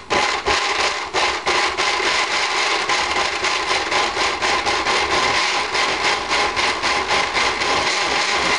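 Countertop blender running, puréeing chunks of boiled radish with coconut milk and eggs: a loud, gritty grinding as the chunks are chopped against the jar, settling into a steady run as the mix turns smooth.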